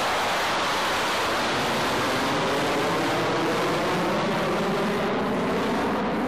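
Jet noise from a B-52 bomber's eight turbojet engines as it climbs out after takeoff: a steady, loud rushing sound whose pitch sweeps slowly down and then back up.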